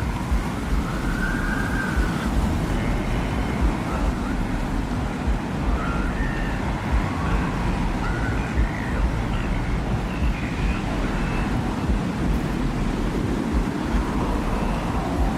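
Designed desert-wind ambience: a steady low rushing wind, with faint short wavering tones gliding up and down above it, coming and going throughout.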